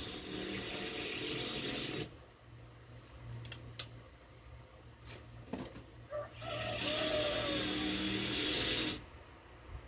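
A motor-driven machine or power tool runs in two spells of about three seconds each, a steady hiss over a low hum. A few light knocks and clicks fall in the quieter gap between the spells.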